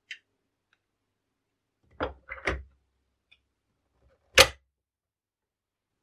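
Hard objects being handled and set down: a light click at the start, a quick run of knocks about two seconds in, and one loud, sharp knock a little past four seconds.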